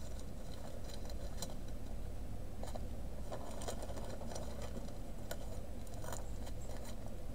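Small plastic zip bags of square diamond painting drills being handled, the drills rattling and the plastic crinkling in scattered light clicks over a steady low hum.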